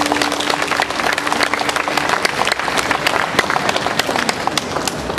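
Audience applauding, with many hands clapping irregularly. A held low note of the dance music fades out in the first two seconds.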